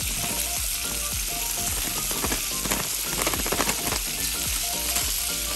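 Melted butter sizzling and bubbling in a saucepan as brown sugar is poured in, with denser crackling about three seconds in. Background music with a steady beat plays underneath.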